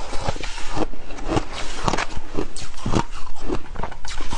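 Close-miked crunching and chewing of frozen shaved ice in the mouth, irregular crisp crunches about two to three a second.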